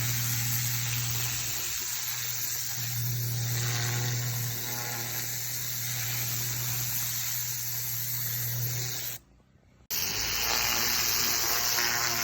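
Pressure washer running: a steady machine hum under the hiss of the high-pressure water jet. It cuts out abruptly for under a second about nine seconds in, then resumes.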